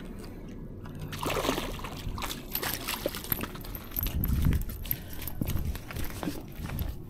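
A hooked fish splashing at the water's edge as it is reeled in and landed, followed by scuffing footsteps on a dirt bank.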